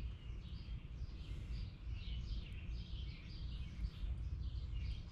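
Small birds chirping in the background: short, high, falling chirps a few times a second, over a steady low rumble.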